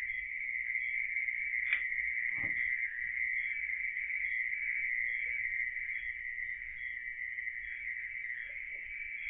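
A steady, high chorus of night insects, crickets, trilling without a break. There is a single click about two seconds in, followed by a short low sound that falls away.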